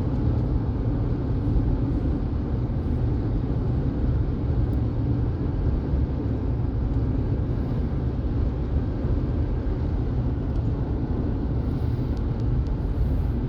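Steady road noise heard from inside a moving car: a low, even rumble of tyres and engine.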